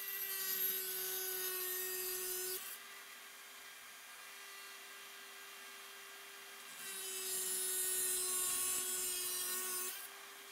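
Mains-powered Dremel 4300 rotary tool running at a steady high pitch with a cut-off wheel, grinding through an aluminium taillight bracket in two passes: one for about the first two and a half seconds, and another of about three seconds near the end. Between them the motor spins freely and more quietly.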